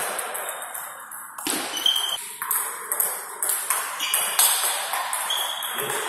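Table tennis ball in play: a run of sharp, irregular ticks as the ball strikes bats and table, some with a short ringing tone.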